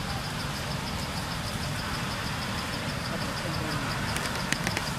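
A steady low rumble, like a running engine, with a high tone pulsing evenly throughout and a few sharp clicks near the end.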